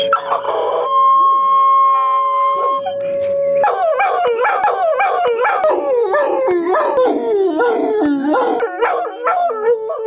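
A dog howling along with a tornado warning siren, whose steady tone runs underneath. The dog holds one long howl near the start, then from about three and a half seconds gives a quick run of short howls that step down in pitch.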